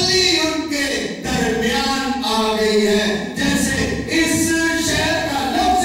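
A man singing a short line without accompaniment into a microphone, holding long notes.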